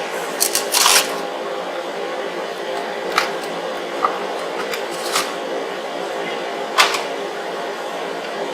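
A steady hum with a few sharp metallic clicks and taps from hand tools at work on the pinion seal. There is a quick cluster of clicks in the first second and single ones spaced through the rest, one of the loudest about seven seconds in.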